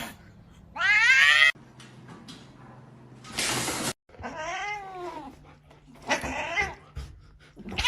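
Cats meowing and yowling in a few separate calls. There is a loud wavering yowl about a second in, a short noisy burst a little past three seconds, then two more meows whose pitch rises and falls.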